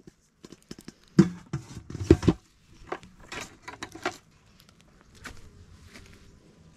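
Handling noise while harvesting: several loud knocks and rustles in the first couple of seconds, then softer rustling and steps on wood-chip mulch.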